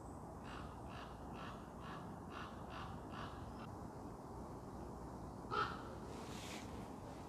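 Common raven calling: a run of about eight short, evenly spaced calls, roughly two a second, then a single louder croak about five and a half seconds in.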